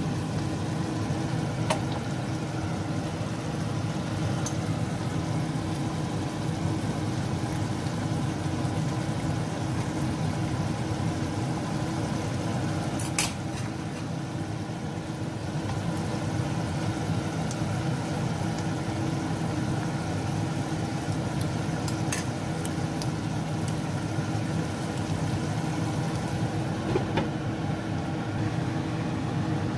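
Beef and bell pepper stew simmering and sizzling in a pan over a steady low hum, with a few sharp clicks of the wooden spatula against the pan as it is stirred.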